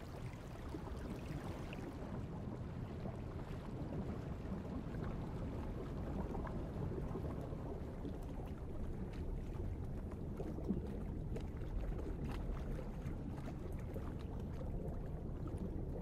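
Steady low rumbling underwater ambience with faint scattered ticks.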